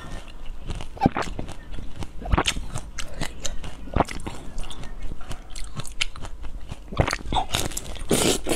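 Close-up biting and chewing of a small orange citrus fruit: scattered crisp crunches and wet mouth clicks, with a louder run of crunching bites near the end.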